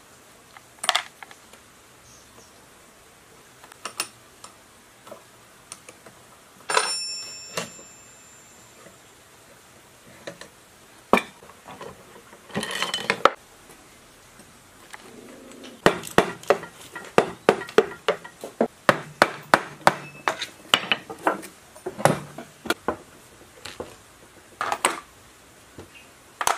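Steel parts and hand tools clinking and knocking while an old lathe's cross slide and tool post are taken apart by hand. One metal piece rings briefly about seven seconds in, and the second half holds a quick run of rapid metallic clicks and taps.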